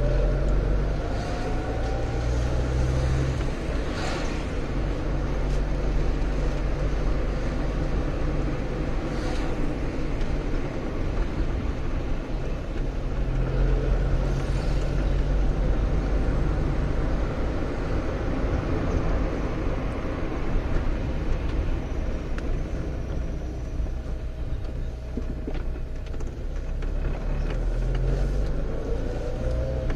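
Car engine and road noise heard from inside the moving car: a steady low engine hum whose note rises as the car speeds up at the start and again near the end, with a couple of short knocks along the way.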